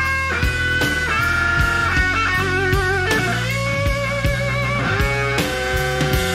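Slow blues on electric guitar with bass and drums: long held lead notes, bent and shaken with wide vibrato, over a steady slow beat.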